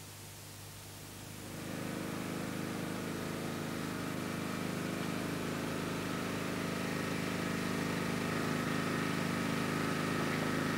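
Vehicle engine idling steadily. It comes in about two seconds in and slowly grows a little louder.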